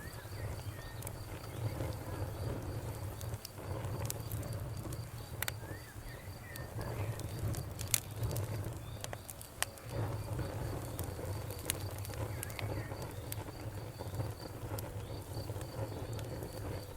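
Fire crackling: a steady low rumble with sharp pops scattered through, the loudest about eight seconds in. A faint, high, evenly repeated chirp runs behind it.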